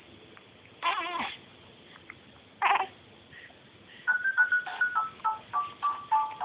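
A baby makes two short, high, wavering vocal sounds. About four seconds in, a simple melody of clear single electronic notes starts.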